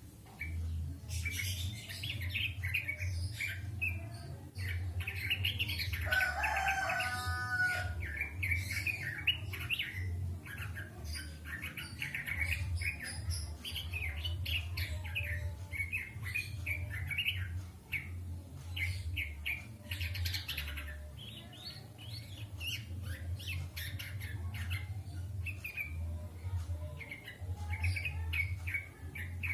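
Songbird singing in fast, almost continuous strings of high chirps and trills, with a run of lower repeated whistled notes about six seconds in. A steady low hum runs underneath.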